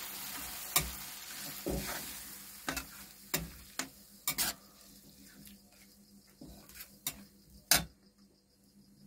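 Metal spatula stirring and scraping thick masala in a metal kadai, clinking against the pan about nine times, the loudest clink near the end. Under it the masala sizzles as it fries with a little added water, and the sizzle dies down over the first few seconds.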